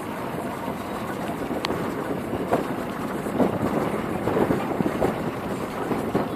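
Car driving slowly over a rutted dirt track: steady engine and tyre noise, with a sharp click about two seconds in and several knocks and rattles in the second half as it rides over the ruts.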